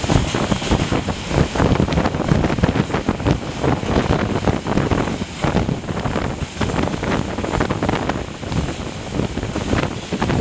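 Strong wind buffeting the microphone on the roof of a moving train, in irregular gusts, over the rumble of the train running.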